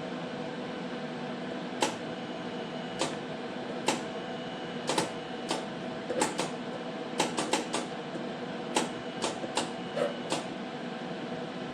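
Welding machine humming steadily, with short, sharp, irregular snaps and crackles of brief tack welds on sheet-metal floorboards, about fifteen of them, bunched more closely in the second half.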